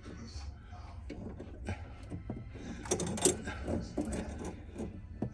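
Pliers gripping and turning a faucet supply-line nut under a kitchen sink: scattered small metal clicks and clatter, loudest in a short cluster about three seconds in.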